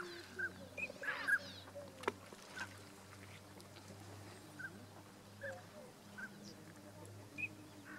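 Tundra swans (Bewick's swans) calling from a flock: scattered short, high honking notes, most of them in the first two seconds, over a steady low hum.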